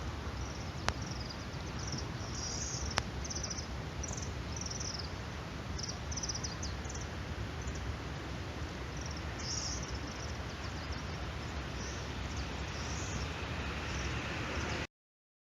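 Outdoor garden ambience: a steady background hiss with short, high chirps recurring irregularly, and two faint clicks in the first few seconds. The sound cuts out suddenly just before the end.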